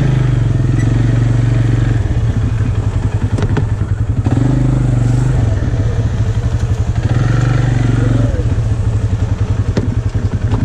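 Textron Alterra 500 ATV engine chugging at low speed on a mud trail, rising about three times as the throttle is opened and dropping back between. A couple of faint clicks from the machine.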